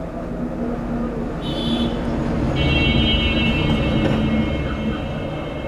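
Low, steady vehicle-traffic rumble with a high-pitched horn-like tone, brief at about a second and a half in, then held for about three seconds until near the end.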